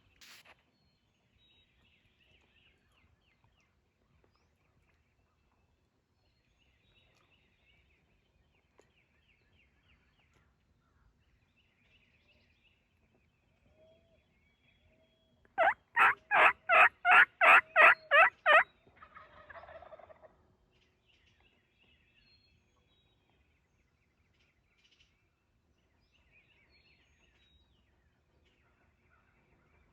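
Wild turkey calling: a single loud run of about ten quick, evenly spaced notes lasting about three seconds, past the middle, followed by a weaker call. Faint songbird chirps come and go in the background.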